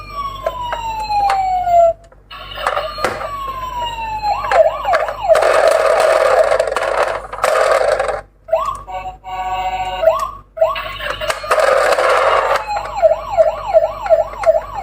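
Emergency vehicle siren sounds. Long falling wail sweeps come first, then rapid yelp sweeps, about four a second near the end. Between them are two loud stretches of harsh, noisy blare and a brief steady multi-tone horn.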